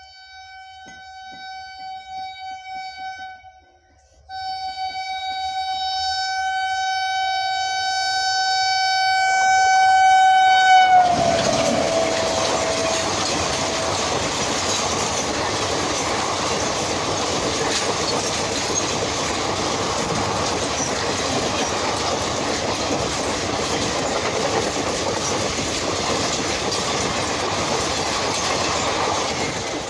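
Express train's air horn sounding two blasts as it approaches at high speed: a short one, then a longer one that drops in pitch as the locomotive passes. The coaches then rush past, a loud steady rumble of wheels and wind.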